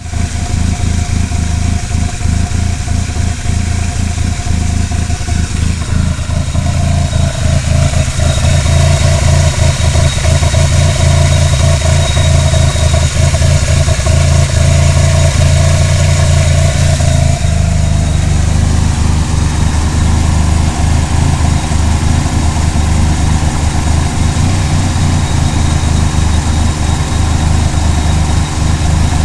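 Conquest TSi's turbocharged 2.6-litre four-cylinder engine running with a rough, uneven idle: the engine is running badly. Its note shifts about two-thirds of the way through.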